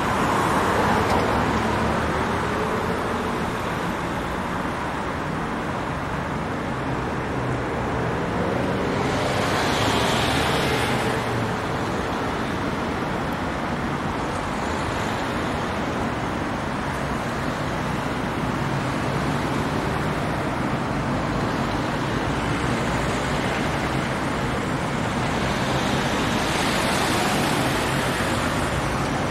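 Steady city road traffic, with vehicles passing close by about ten seconds in and again near the end.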